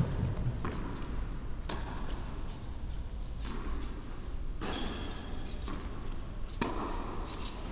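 Tennis rally on an indoor court: racket strikes and ball bounces give a series of sharp pops about a second apart, each echoing in the hall. The loudest is a racket hit right at the start.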